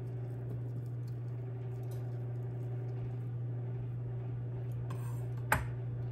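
Light ticks and taps of a knife working a loaf of canned ground venison, with one sharp knock about five and a half seconds in, over a steady low hum.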